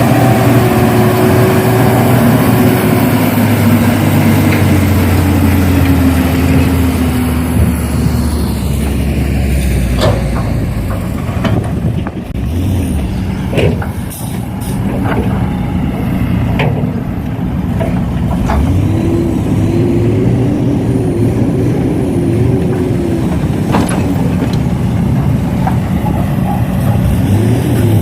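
Radio-controlled model excavator and dump truck machinery running steadily, its motor pitch sliding down early and rising and falling again later. A handful of sharp clicks come and go along the way.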